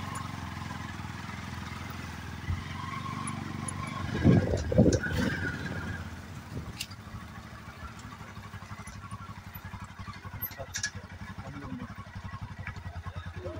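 Small motorcycle engine running at low speed with a steady throb while the bike rides along a rough dirt track. There are a few louder bursts about four to five seconds in.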